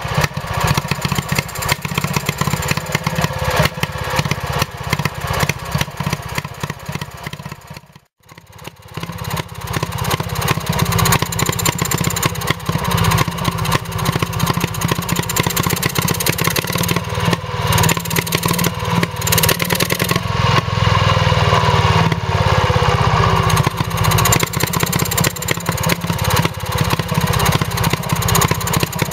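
1934 Villiers WX11 2.5 hp two-stroke stationary engine running steadily on petroil. There is a brief gap about eight seconds in, and the engine is a little louder through the middle.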